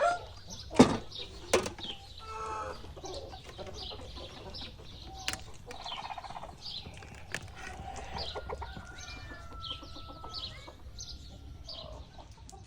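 Domestic chickens clucking, with two sharp knocks in the first two seconds.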